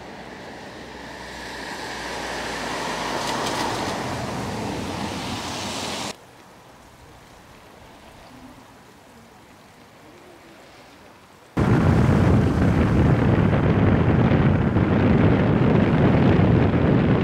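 Flood-swollen river rushing past, growing louder over the first few seconds. It cuts off suddenly about six seconds in to a much quieter stretch. Near the end it gives way to a loud, steady low rumble of wind buffeting the microphone.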